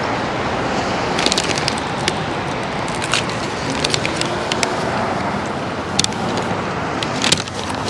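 Chewing a crispy taco: scattered sharp crunches, several a few seconds apart, over a steady background noise.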